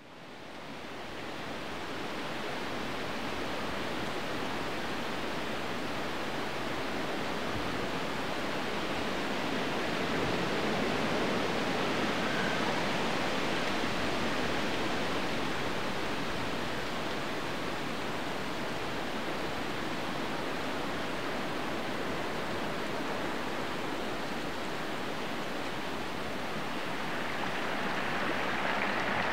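Water of a small woodland stream running over rocks, a steady rushing that fades in over the first couple of seconds.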